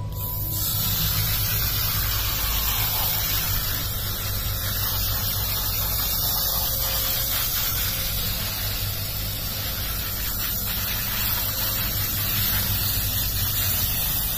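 Garden hose spray nozzle spraying water over a bunch of freshly pulled radishes and their greens to rinse off the mud. It is a steady hiss that comes on right at the start.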